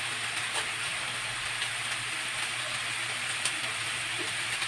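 Grated squash, chicken breast and onion frying in oil in a pan: a steady sizzle with a few faint pops.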